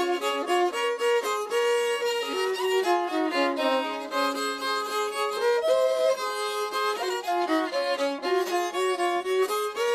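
Fiddle music: a bowed fiddle playing a melody, its notes stepping quickly from one to the next.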